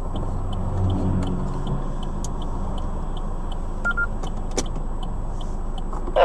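Steady engine and road noise heard from inside a moving car, with the engine hum rising briefly about a second in and a short electronic beep around four seconds in.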